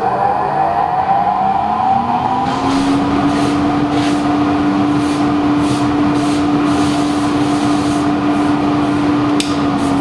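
Small HME workshop dust extractor's motor spinning up, its whine climbing in pitch over the first two or three seconds, then running at a steady hum with the rush of air through it. The hum dips slightly in pitch right at the end.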